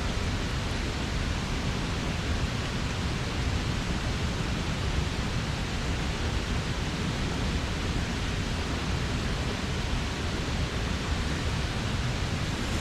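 Mountain stream water rushing over rocks: a steady, even rush of noise with no change.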